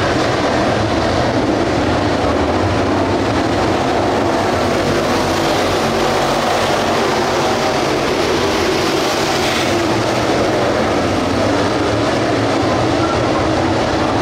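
A pack of dirt-track race cars with 602 crate V8 engines running at speed around the oval in a steady, dense engine roar. The sound grows louder and brighter about nine to ten seconds in, as the pack sweeps past closest.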